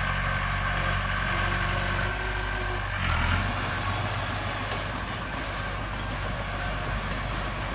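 Heavy diesel engine of earthmoving machinery running steadily, its note shifting about two to three seconds in.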